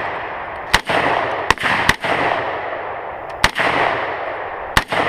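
Rifle firing five shots at uneven intervals, two of them in quick succession, each crack followed by a long rolling echo.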